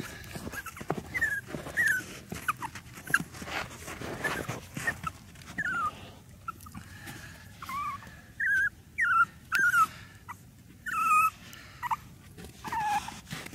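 Yorkshire Terrier puppy whimpering: many short, high-pitched squeaks, some sliding down and some up, more frequent in the second half, with soft scuffs of snow between them.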